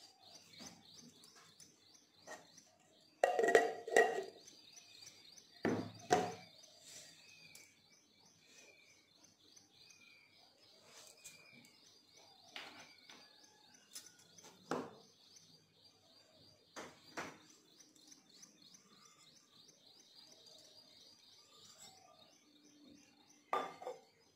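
Birds chirping in the background: a continuous rapid high twittering, joined a quarter of the way in by a run of about seven short falling notes. A few sharp knocks and clatters cut in now and then, the loudest two near the start.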